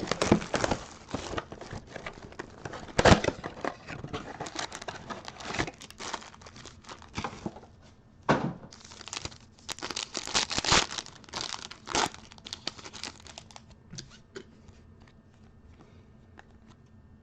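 Plastic wrapping of a blaster box of football trading cards and its card packs being torn open and crinkled: irregular crackling and tearing that dies down to a few faint rustles about fourteen seconds in.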